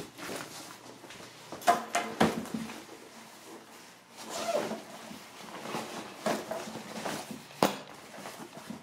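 Household handling noises: sneakers dropped on a doormat and a soft lunch bag set down on a granite countertop, heard as scattered soft thuds and knocks, the sharpest near the end.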